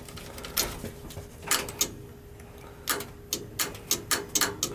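Boiler's Honeywell gas valve clicking on a call for heat, a run of sharp irregular clicks that come quicker near the end, over a faint steady hum. The valve is getting 24 volts and the pilot is lit but it will not open: a failed gas valve.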